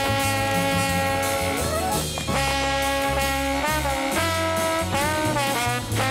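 Swing-style background music with brass holding chords over a bass line; about halfway through, the held notes waver and bend.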